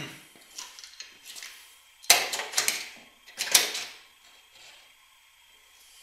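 Clattering knocks and rattles of hard objects in three short bursts, the last two loudest, about a second apart, dying away after about four seconds.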